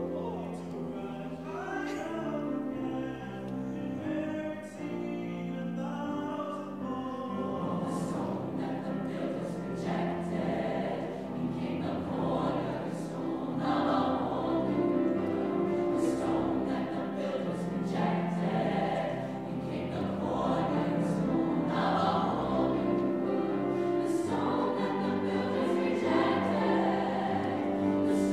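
A mixed-voice high school choir singing a choral piece with grand piano accompaniment, the sound building gradually louder.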